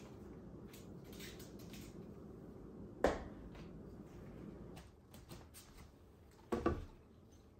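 Plant pots being handled and set down on a plant stand: a sharp knock about three seconds in and a louder double knock near the end, with light clicks and rustles of handling in between over a faint steady room hum.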